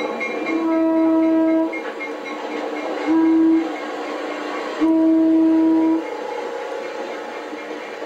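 Air horn of a Fairbanks Morse H-12-44 diesel switcher sounding three blasts, long, short, long, over the rumble of the passing train: the end of the long-long-short-long grade-crossing signal.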